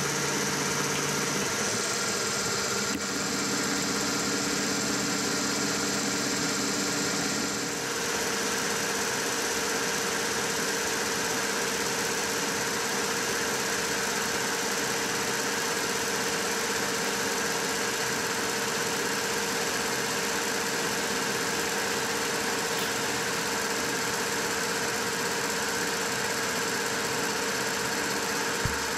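Milling machine running with a fly cutter taking a light facing cut across an aluminium block: a steady machine hum and whine. The mix of tones changes about eight seconds in.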